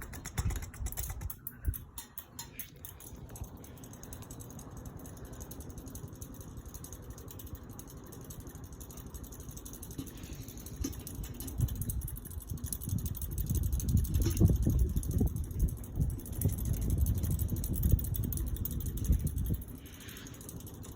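Hunter Savoy ceiling fan running on high speed, with an uneven low rumble of its breeze buffeting the microphone that grows stronger about halfway through. A few clicks sound in the first couple of seconds.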